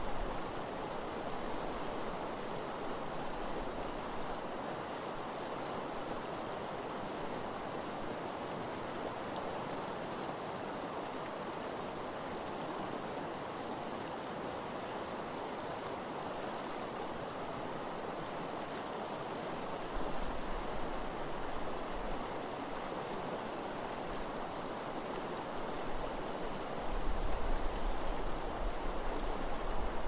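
The Eel River running over a shallow gravel riffle, a steady rushing burble of flowing water. Bursts of low rumble rise under it about two-thirds of the way through and again near the end.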